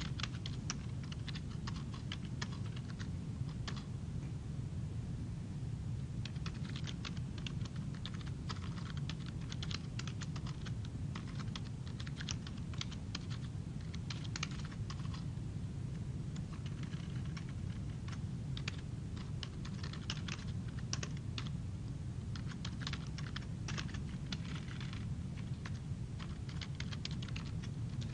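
Typing on a computer keyboard, in runs of quick key clicks broken by short pauses, over a steady low hum.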